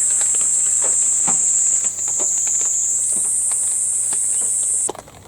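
Insects calling in a loud, steady, high-pitched buzz that cuts off suddenly near the end.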